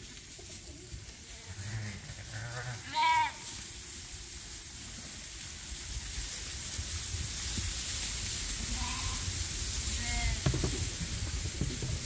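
Lambs bleating in a straw-bedded barn: one clear bleat about three seconds in and a few fainter ones later. Underneath, a rustle of the lambs moving about on the straw grows louder from about halfway.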